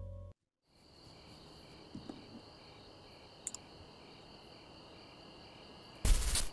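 Title music fading out, then faint, steady cricket chirping as night-time ambience. Near the end a short, loud burst of noise cuts in.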